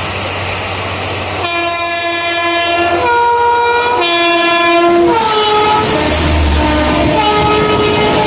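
Electric locomotive's horn sounding in a long blast whose tones change twice, then falling in pitch a little after five seconds in as the locomotive passes close alongside, with fainter lower horn tones after. Underneath, steady rail and wheel noise of two trains running side by side.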